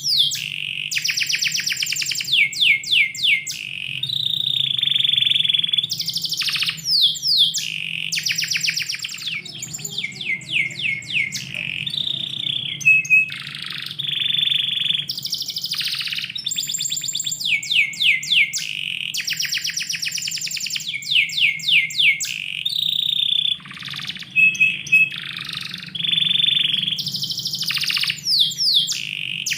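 Domestic canary singing a long, nearly unbroken song of fast trills, rapid repeated notes and downward-sweeping whistles.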